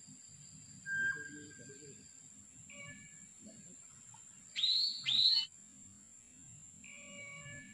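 Birds calling: two loud upward-sweeping calls about half a second apart in the middle, with quieter short calls before and after.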